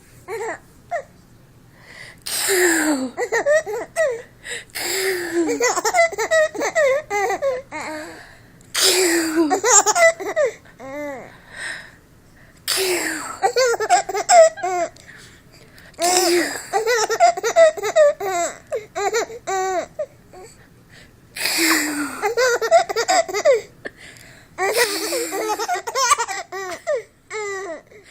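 Baby laughing in repeated fits, each a run of short, quick giggling syllables. Each fit comes right after a short, loud breathy burst. The pattern repeats about seven times with pauses between.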